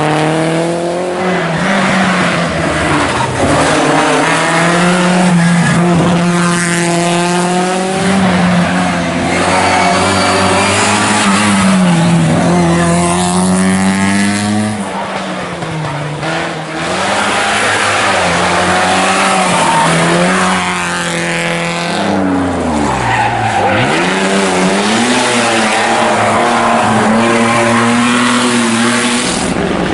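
Historic rally cars coming through a tight corner one after another, each engine revving hard, its pitch climbing and dropping as the driver brakes, shifts down and accelerates away.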